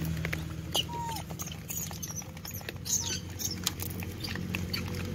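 A troop of rhesus macaques foraging on stony ground: scattered small clicks and scrapes of pebbles and a few brief high squeaks, one of them falling in pitch about a second in, over a steady low hum.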